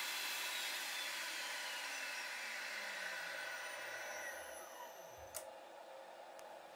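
VEVOR 3 kW milling spindle, driven by its frequency inverter, braking to a stop over about five seconds: its whine falls steadily in pitch as the running noise fades. A sharp click comes about five seconds in, and a fainter one a second later.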